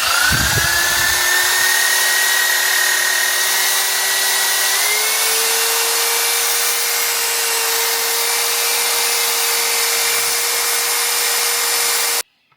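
A handheld electric power tool running steadily with a loud rushing hiss over a motor hum. Its pitch steps up about five seconds in, and it cuts off abruptly near the end.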